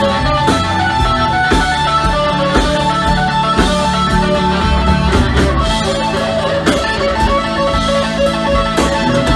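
Live band playing a slow number: a red semi-hollow electric guitar rings out sustained notes over bass guitar and drums, with a drum hit about once a second.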